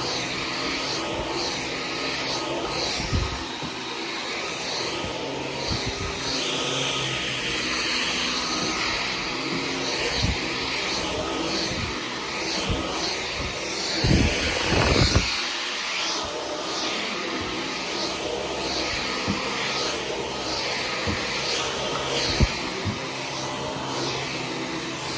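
Dyson V15 Detect cordless stick vacuum running on its medium setting: a steady high motor whine over a rushing suction noise that swells and fades with each push and pull stroke. The whine shifts pitch a couple of times, and a few low thumps come about fourteen seconds in.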